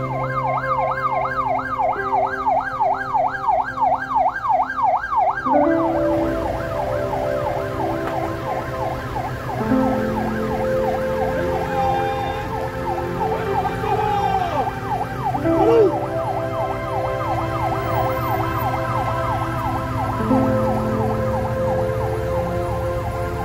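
Police car siren in a fast yelp, its pitch sweeping up and down about three or four times a second. It is loudest for the first five seconds or so, then goes on more faintly.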